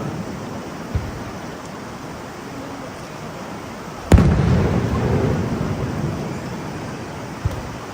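Aerial fireworks shells bursting: one loud, sharp bang about four seconds in, its rumble echoing away over the following seconds, with fainter booms about a second in and near the end.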